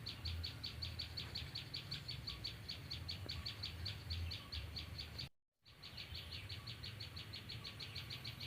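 A small songbird calling a fast, evenly repeated high chirp, about six notes a second, over a faint low hum. The sound cuts out completely for a moment a little past halfway, then the chirping carries on.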